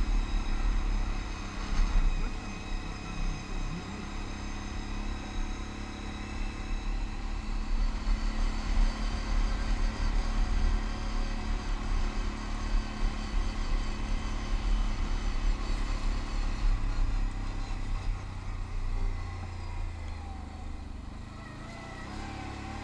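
Can-Am ATV engine running steadily while riding along a gravel trail. Near the end the engine note drops as the machine slows.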